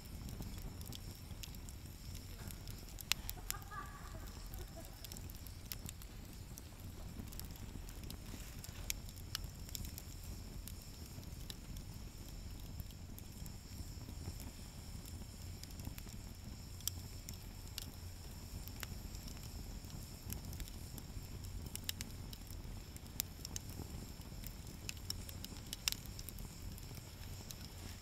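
Wood fire burning in a fire stand, crackling with scattered sharp pops over a low steady rumble.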